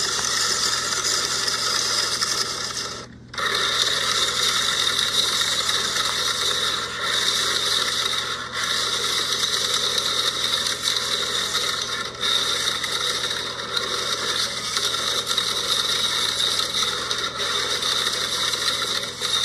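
The spinning centre of a plastic toy wrestling-ring playset turning with a diecast monster truck on it: a continuous mechanical rubbing and rattling. It stops briefly about three seconds in, then starts again.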